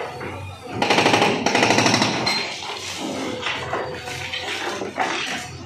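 Hydraulic breaker on a JCB backhoe loader hammering masonry in two rapid bursts of about a dozen blows a second, about a second in, then a rush of rubble and debris crumbling down.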